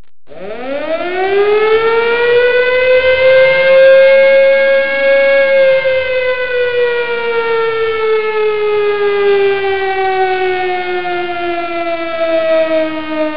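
Siren rising steeply in pitch over about the first second, holding a steady pitch for a few seconds, then slowly falling.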